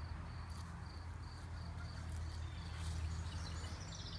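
Insects chirping in a steady, repeated high pulse, with a quicker run of chirps near the end, over a steady low rumble.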